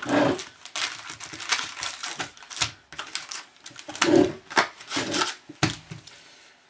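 Trading-card pack being opened and handled by hand: irregular crinkling and crackling of the wrapper and cards, loudest about four seconds in.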